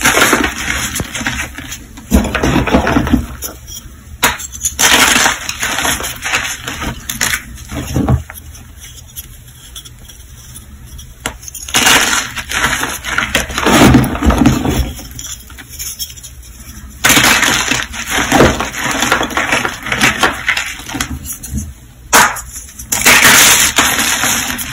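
Hands squeezing and crumbling lumps of reformed gym chalk into powder: dry crunching and crackling in bursts, with softer stretches in between as the loose chalk is worked and let fall.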